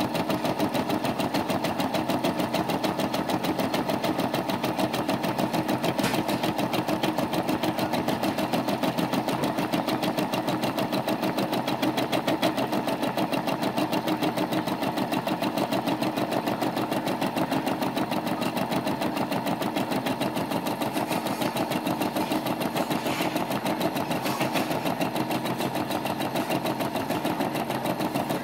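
Brother SE425 embroidery machine stitching a design, its needle running in a rapid, steady, even rhythm of stitches while the hoop carries the fabric.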